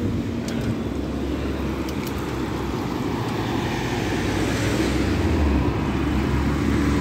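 Road traffic crossing a level crossing: a car drives over, then a diesel double-decker bus approaches, its engine drone growing louder.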